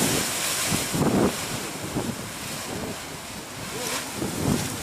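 Wind buffeting the microphone in steady gusts, with stronger gusts about a second in and near the end.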